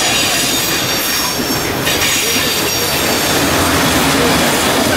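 Historic electric tram car on the track, with a steady rumbling noise and a faint high wheel squeal that fades out about two seconds in.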